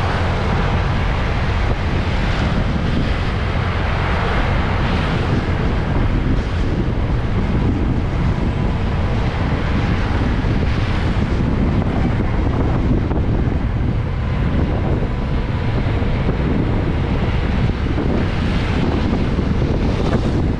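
Wind blasting the microphone of a GoPro action camera on a moving motorcycle, a steady heavy rush with the bike running underneath. It is strong wind: "anginnya kenceng banget".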